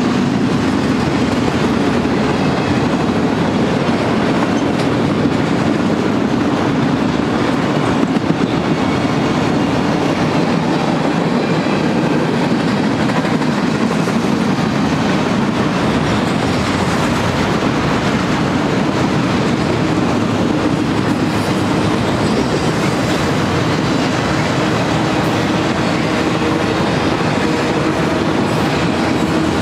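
Freight train's cars, autoracks and covered hoppers, rolling past: a steady rumble of steel wheels on the rails that holds even throughout.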